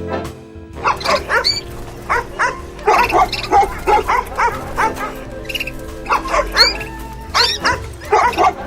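Cartoon animal calls, short and repeated in quick groups with pauses, over background music.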